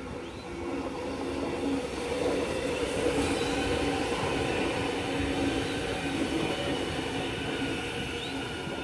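Melbourne Metro X'Trapolis electric suburban train passing close by: wheels running on the rails and a steady motor hum. It grows louder over the first two seconds, holds, then eases off a little near the end.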